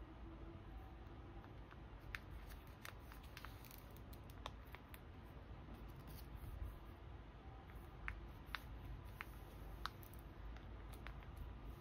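Photocards in plastic sleeves being slid into a binder's clear pocket pages: light plastic rustling with a dozen or so short, sharp clicks and taps scattered through.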